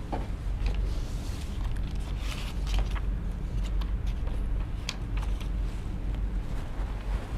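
A steady low hum, with scattered light clicks and rustles over it.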